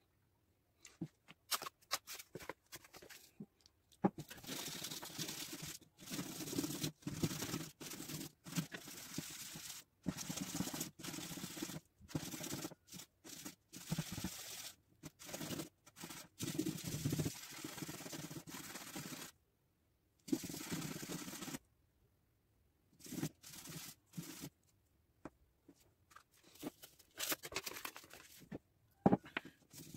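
An epoxy resin ring rubbed by hand on black sandpaper, making a gritty scraping in runs of strokes broken by short pauses.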